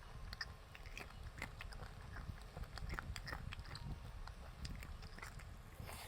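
Chewing and biting sounds of a person eating, a run of irregular small wet clicks and smacks.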